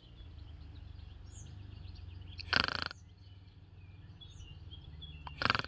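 Thrush nestlings giving two short, raspy, snore-like rattles, one in the middle and one at the very end, over faint chirping of other birds and a low steady hum.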